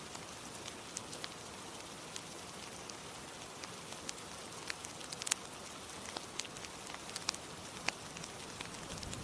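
Steady hiss of rain with irregular sharp pops and crackles of a wood fire in a fireplace, the loudest pop a little past the middle.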